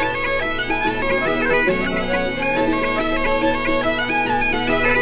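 Bagpipe music: a steady drone under a quick, ornamented melody.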